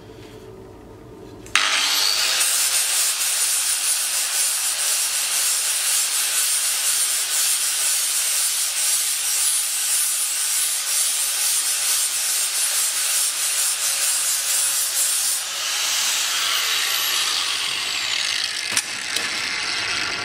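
Handheld angle grinder grinding down the welds on a steel motorcycle exhaust pipe. It starts abruptly about a second and a half in as a steady, hissing grind with a thin high whine. The whine drops away for the last few seconds while the grinding goes on.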